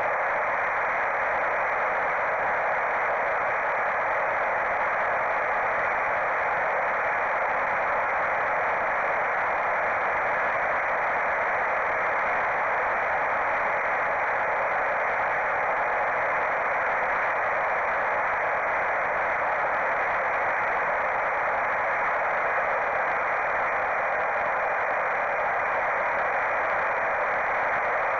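Steady hiss of static on the analog FPV video link's audio channel, which carries the sound from the wing's onboard camera microphone. It is an even, unchanging hiss confined to the middle of the range, with no motor pitch or other sound standing out.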